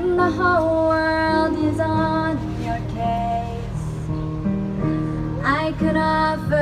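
A teenage girl singing a slow melody through a microphone, over held chords on an electric keyboard. She glides up into a new phrase about five seconds in.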